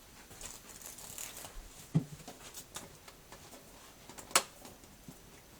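Faint scattered rustling and light taps, with two sharp clicks, one about two seconds in and a louder one about four and a half seconds in.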